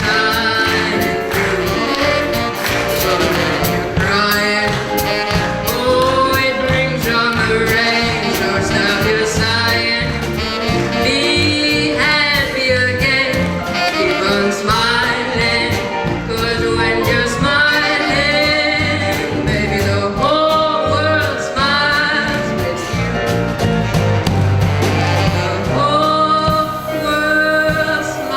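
A live song: a singer with instrumental accompaniment.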